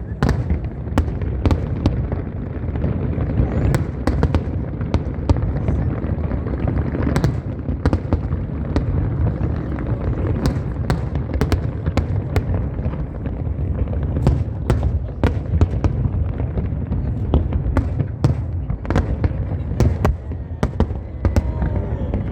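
Fireworks display: continuous low booming of aerial shells with many sharp cracks, several a second, over crowd murmur.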